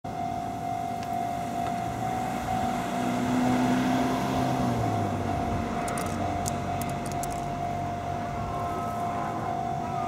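Japanese railway level-crossing alarm ringing steadily, with a car engine passing in the first half and dropping in pitch as it goes by.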